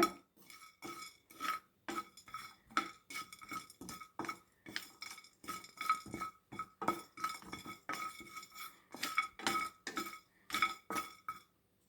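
A spoon stirring dry-roasting whole spices (black pepper, cumin, dry ginger) in a metal frying pan, clinking against the pan in short, ringing knocks about three times a second, stopping near the end.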